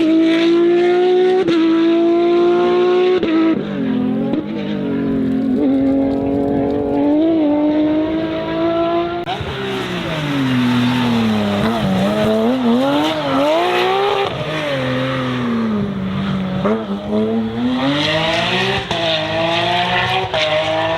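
Porsche 911 997 GT3 rally car's naturally aspirated flat-six at full throttle, climbing through the gears with quick upshifts. After an abrupt change about nine seconds in, the engine rises and falls with throttle lifts and blips, with tyre squeal as the car slides, then accelerates again near the end.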